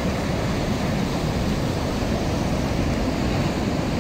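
Ocean surf breaking and washing over rocks, a steady rushing with wind on the microphone.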